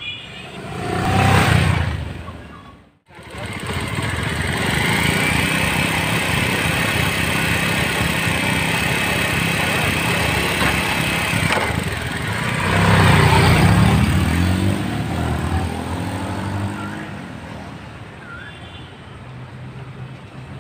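Bajaj Pulsar single-cylinder motorcycle engines: a short swell and fade near the start, then, after a sudden cut, steady running with a high whine. About halfway through it surges louder, rising and falling in pitch, then fades away toward the end.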